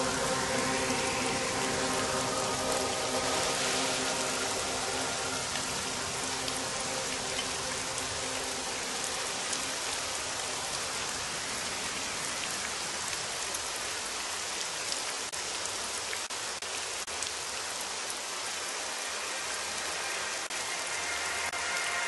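Steady rain-like hiss with faint scattered ticks, the ambient soundtrack of a nature slideshow. Soft sustained synthesizer chords sit beneath it, fading out over the first few seconds and returning near the end.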